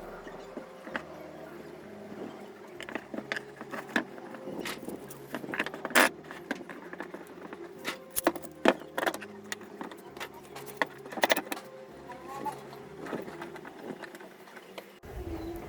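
Irregular light clicks and knocks of hands working on a glued MDF speaker box and its parts, the sharpest about six seconds in, with faint steady tones underneath.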